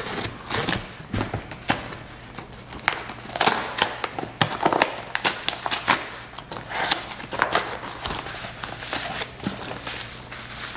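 Scissors cutting packing tape on a small cardboard box, then the cardboard being torn open by hand and a bubble-wrapped item taken out: irregular crackling, tearing and rustling, loudest about halfway through.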